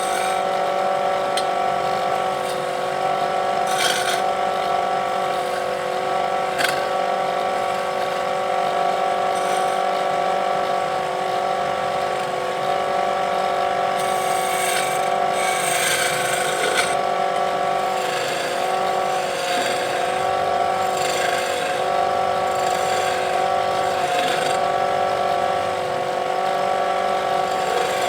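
Wood lathe running with a steady whine from its motor, a turning tool scraping and cutting the spinning wood with a hiss in places and a few sharp clicks.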